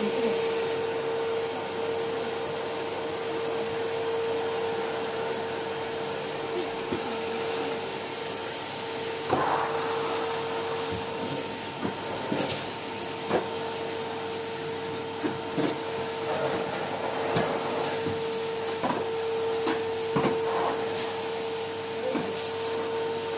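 Numatic Henry tub vacuum cleaner running steadily, its motor giving a constant whine, with a few short knocks as the cleaning head bumps about.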